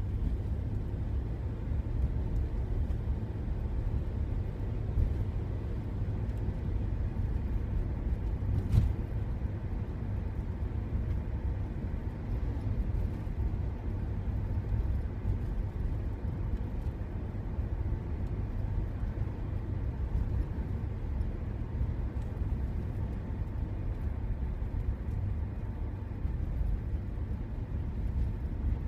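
Steady low rumble of a car driving, engine and road noise heard from inside the cabin, with a single short click about nine seconds in.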